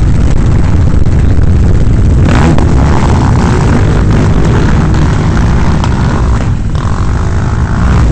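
Many quad bike (ATV) engines running together at close range, a loud, steady mechanical rumble that fills out a little about two seconds in.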